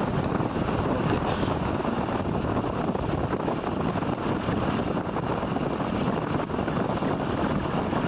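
Steady wind rush on the microphone mixed with the running noise of a motorcycle riding at road speed.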